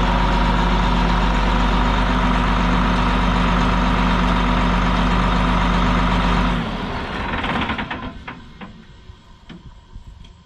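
Heavy diesel engine running steadily, then shut off abruptly about two-thirds of the way in. Afterwards only faint scattered clicks and knocks.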